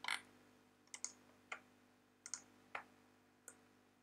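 Faint computer mouse clicks, about eight spaced irregularly, some in quick pairs.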